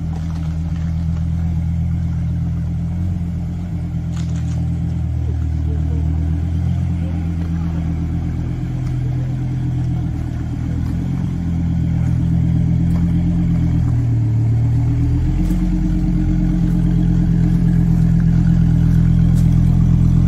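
Dodge Viper's 8.4-litre V10 engine running steadily at low revs as the car creeps along at walking pace, getting a little louder in the second half.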